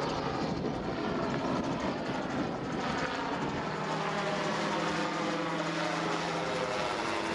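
Gyrocopter flying overhead: steady drone of its engine and pusher propeller, with the pitch drifting slowly lower as it banks away.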